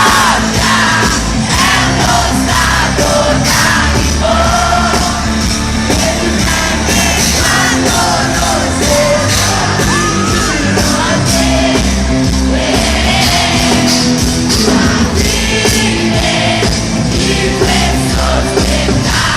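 Live pop-rock band playing loudly in an arena, with drums, bass and a singer's voice, and yells from the crowd over it.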